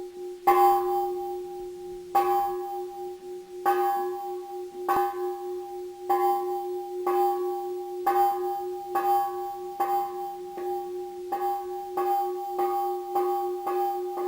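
A Buddhist temple bell struck over and over, each stroke ringing on at the same steady pitch, the strokes speeding up from about one every second and a half to about two a second.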